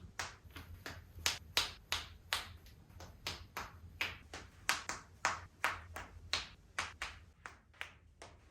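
A quick, even run of sharp clapping smacks, about three a second.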